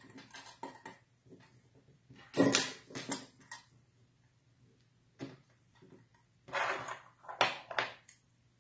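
Handling sounds of a metal diamond jig bar and hook being worked with monofilament line: short clinks, taps and rubs in several clusters, the loudest about two and a half seconds in and another near the end.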